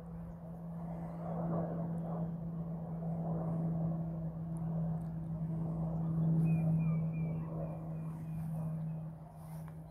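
Distant aircraft flying overhead: a steady low drone that swells to its loudest about two-thirds of the way through, then fades. A bird chirps a quick run of short notes in the second half.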